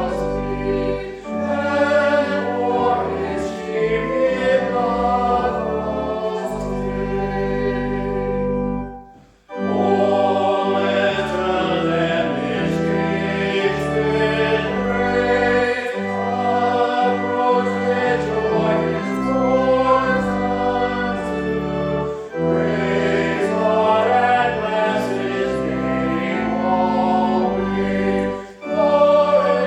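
A choir singing a hymn with organ accompaniment, in long sustained phrases, with a brief breath-pause about nine seconds in and another near the end.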